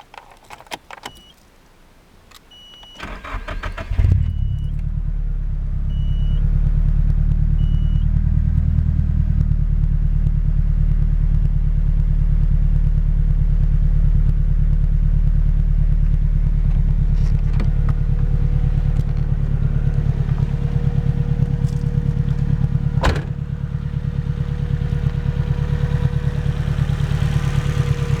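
Key clicks and a few short beeps, then a Nissan SR20DET turbocharged four-cylinder cranks briefly and catches about four seconds in, settling into a steady idle. The idle runs without tappet tick, with freshly replaced camshafts, rocker arms and lash adjusters.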